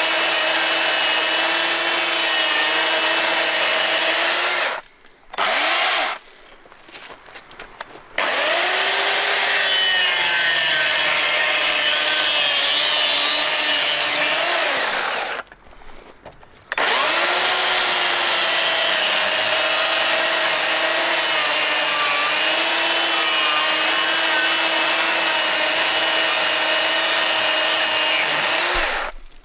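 Stihl chainsaw running steadily as it cuts into a square wooden beam, its pitch sagging and recovering under load. It stops briefly twice, about five and fifteen seconds in, and cuts off near the end.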